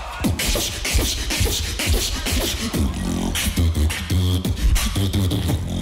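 Live beatboxing: deep bass notes under sharp snare and hi-hat sounds in a quick rhythm, with a few held, pitched bass tones about halfway through.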